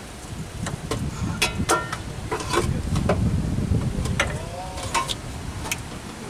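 A 1969 Ford F-250's 360 V8 idles steadily at about 600 RPM. Over it come a series of sharp metallic clicks and clanks, with a brief squeak, as the air cleaner is handled and set back on the carburettor.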